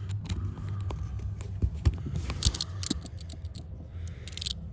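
Scattered light clicks and rattles of hands handling parts and wiring, irregular and close together, over a steady low hum.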